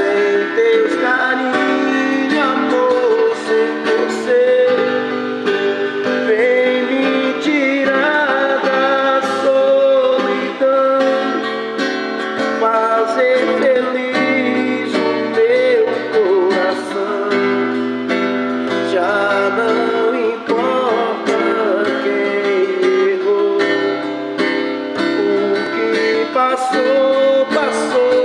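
A viola caipira, the Brazilian ten-string folk guitar, played continuously: a plucked melody over held low bass notes.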